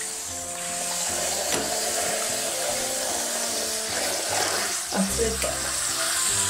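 Background music playing a simple stepping melody over a steady hiss of running shower water.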